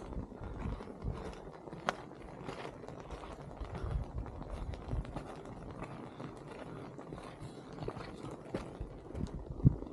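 Footsteps on a dirt mountain trail: slow, uneven steps climbing, with the odd sharp click of a stone underfoot.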